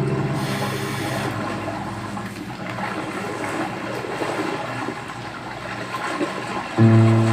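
A rushing, water-like sound effect fills a break in the music. The track's low chords come back near the end.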